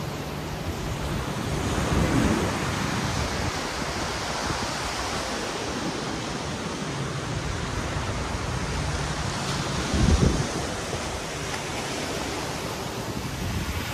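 Sea surf washing onto a beach, with wind on the microphone. Two louder low surges come about two seconds in and again about ten seconds in.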